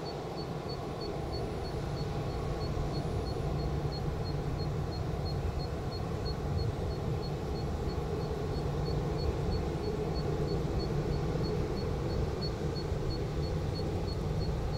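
Boeing 787-8 airliner's jet engines at idle as it taxis slowly into its stand: a steady low rumble, slowly growing louder. A faint high-pitched pulse repeats about three times a second behind it.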